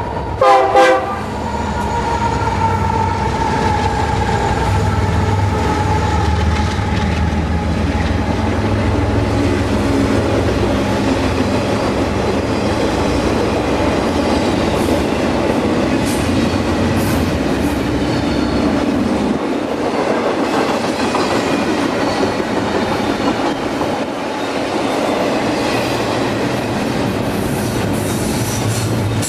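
Freight train passing close by: a short horn blast about a second in, then the steady rumble and clatter of autorack and double-stack container cars rolling past, with thin wheel squeals near the end.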